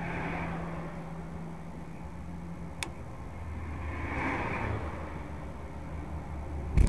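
A car driving, with steady engine and road noise and a single faint click about three seconds in. The noise jumps suddenly much louder right at the end.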